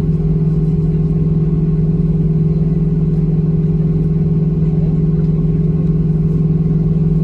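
Steady cabin drone inside a Boeing 737-800 taxiing on the ground, its CFM56-7B engines running at low taxi power, with a constant low hum that does not change.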